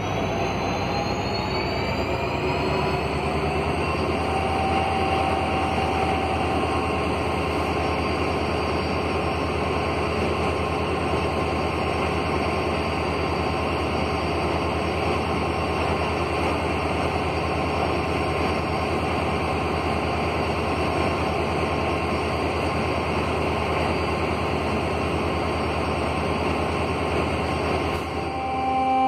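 LHB passenger coaches of an express train rolling past: a steady noise of wheels running on the rails. Faint whining tones rise in pitch during the first few seconds and then hold steady.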